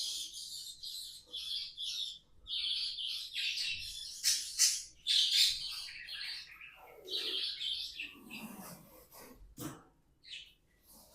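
Pet budgerigars chattering and warbling: a dense run of quick, high twittering calls that thins out and grows quieter over the last couple of seconds.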